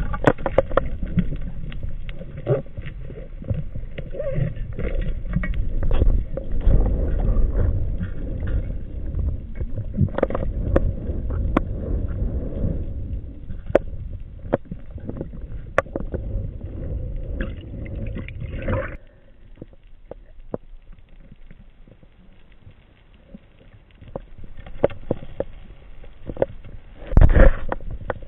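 Underwater noise at a spearfisher's camera housing: low rushing water noise with many scattered clicks and knocks. It drops much quieter about two-thirds in, then builds again, with a loud knock near the end.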